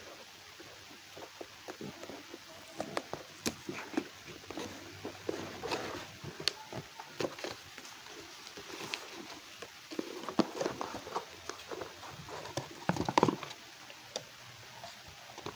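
Cardboard box and paper instruction sheet being handled: scattered rustles, crinkles and light knocks, with a louder cluster of knocks near the end.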